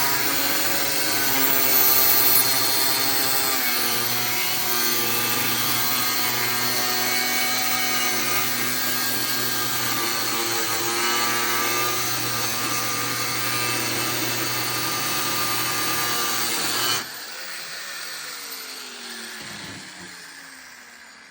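Power tool cutting the stripped Allen heads off steel bolts, running steadily under load. It is switched off about seventeen seconds in and winds down with a falling whine.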